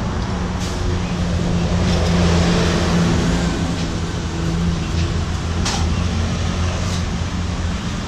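Road traffic passing close by: a motor vehicle's engine hums low and steadily, swelling about two to three seconds in and easing off. A few light clicks sound over it.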